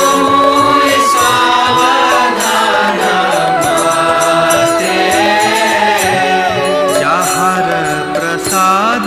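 Kirtan: a crowd of devotees singing a devotional chant together over a steady held drone, with hand cymbals ringing in time.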